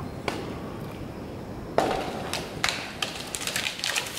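A felled tree cracking as it goes over: a sharp crack a little under two seconds in, then a quick series of snaps of breaking wood and branches.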